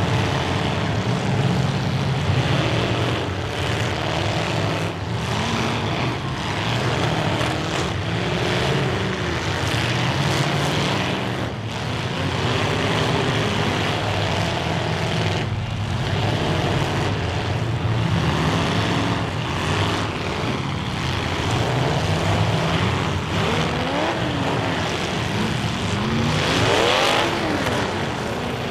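Many full-size demolition derby cars' engines running and revving hard at once, pitch rising and falling, with sharp crunches of cars ramming each other. One engine revs up steeply near the end.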